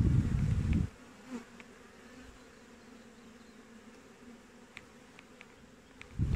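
Honeybees buzzing steadily around an opened hive, a faint continuous hum. A louder low rumble hits the microphone in the first second and again right at the end, with a few faint ticks shortly before.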